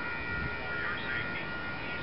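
Horn of an approaching Metra commuter train, held as a steady high-pitched chord, with a few short chirps over it.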